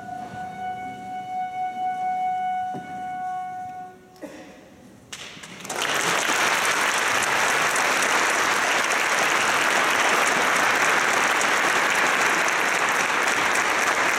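A flute holds a final note that rises slightly in pitch and stops about four seconds in. After a short pause, audience applause breaks out and carries on steadily.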